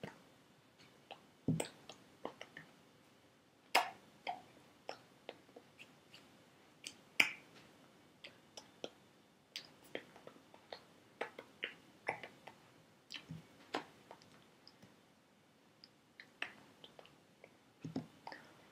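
Hands clapping, slapping and tapping against each other and the body while signing: irregular sharp clicks and smacks, a few a second, with several louder slaps.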